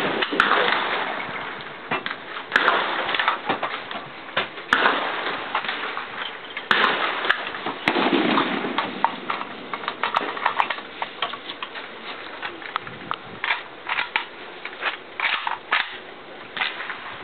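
AK-pattern rifle shots on an open range: single shots fired one at a time at irregular intervals, often a second or more apart, with other gunfire around them.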